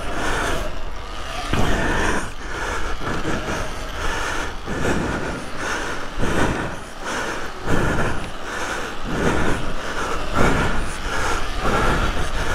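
Electric off-road motorbike ridden hard on a dirt track: the motor whines in repeated surges, about one a second, as the throttle is opened and closed, over steady wind and tyre rumble on the camera microphone.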